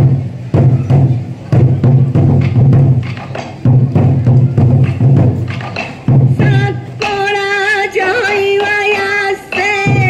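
Sansa odori performance: the dancers' waist-worn sansa drums beat together in a driving pattern. About six seconds in the drums drop out and a long sung melody line carries on alone.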